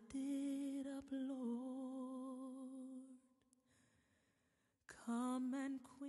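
A voice holding long sung notes with a wavering vibrato. It breaks off about three seconds in and comes back with more held notes about five seconds in.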